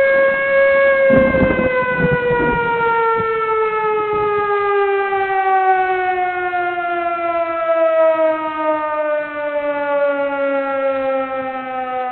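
Civil defense siren of the kind used for tornado warnings, winding down: one long wail that holds its pitch for about a second, then falls slowly and steadily to about half that pitch. A few low rumbles sound under it during the first two and a half seconds.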